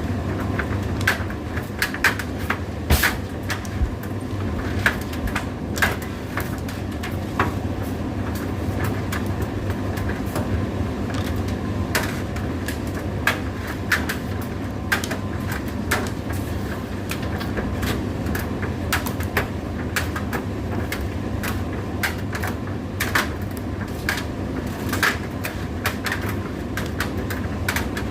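Indesit IDC8T3 condenser tumble dryer running: a steady hum with irregular sharp clicks and knocks every second or so.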